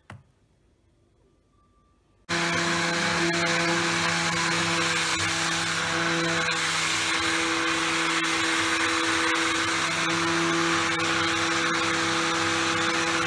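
Electric stick blender switching on suddenly about two seconds in and running steadily at one speed in a bowl of churned cream, whipping butter that has already separated from the buttermilk.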